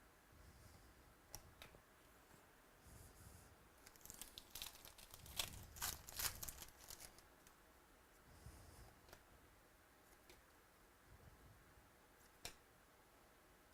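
A trading card pack wrapper being torn open and crinkled, a flurry of tearing and crackling about four to seven seconds in, with a few faint single clicks before and after.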